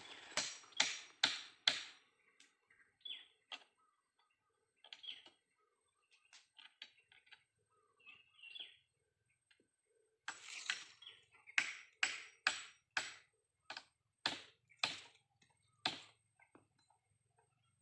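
Hammer blows on the wooden roof-ridge frame of a hut. A quick run of about four strikes comes at the start, then after a lull a run of about ten strikes at roughly two a second, with faint bird chirps in the gaps.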